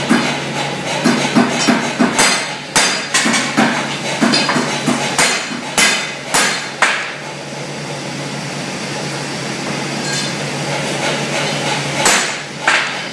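Copper hammer striking a forged steel finial bar laid on a steel straightening block, taking the last bends out of it. The sharp blows come in short runs about two a second, with a pause of about five seconds before another blow near the end.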